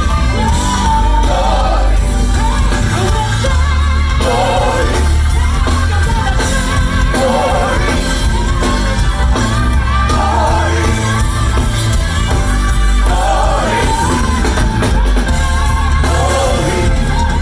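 Gospel choir singing over a band with a heavy, pulsing bass line.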